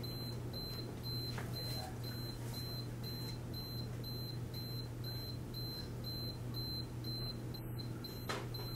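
IV infusion pump alarm beeping: short high beeps repeating evenly about two or three times a second over a steady low hum. It signals that the vitamin B1 infusion has finished.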